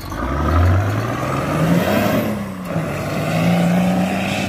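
Nissan Patrol Y60 engine revved through its custom-welded stainless-steel exhaust: the pitch climbs over about two seconds, dips briefly, then climbs again and is held high before dropping off at the end.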